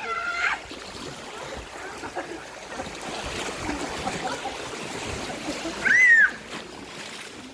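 Sea water splashing and lapping at the shore as a steady wash. A brief voice is heard at the start, and a short, loud, high call rises and falls about six seconds in.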